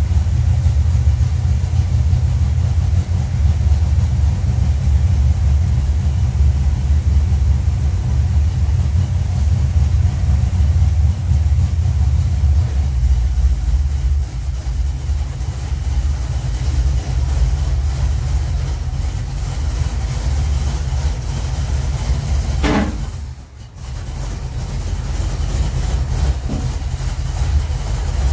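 1951 Chevrolet 3100 pickup's engine idling steadily in a garage, a low, even running sound with a short break late on.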